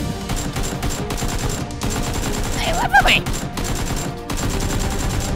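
Rapid burst-fire gunshot sound effects over background music, with a short cry about three seconds in.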